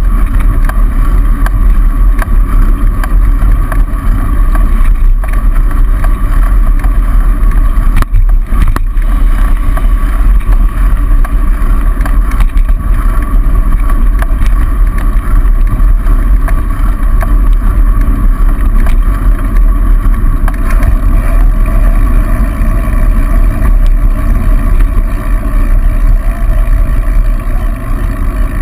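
Steady, loud wind rumble on the microphone of a camera mounted on a moving bicycle, mixed with road noise from passing car traffic.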